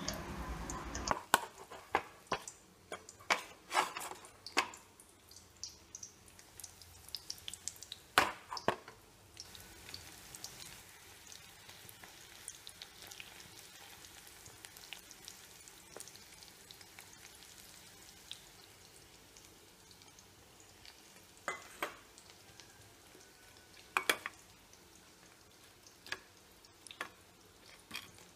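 Chicken pieces deep-frying in hot oil in a wok, a faint steady sizzle, with a metal spoon clinking against the pan now and then as the pieces are turned: a cluster of clinks in the first few seconds and a few more later.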